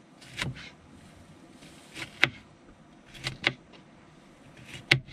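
Kitchen knife cutting yellow squash on a plastic cutting board: about five sharp, irregularly spaced knocks as the blade goes through and strikes the board.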